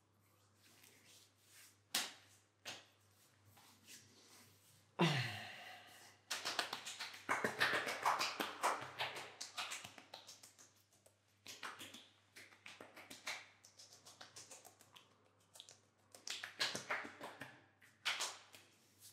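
Hands rubbing and patting a freshly shaved face, with sharp slaps and clicks scattered through. A louder sudden slap comes about five seconds in, followed by several seconds of dense skin-on-skin rubbing.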